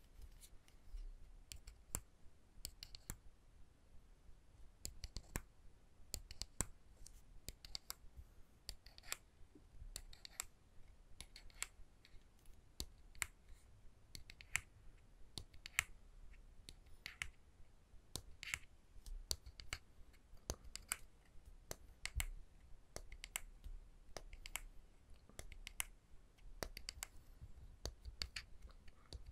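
Close-up tapping on small wooden objects: sharp, irregular clicks and taps, a few a second, with the occasional louder knock.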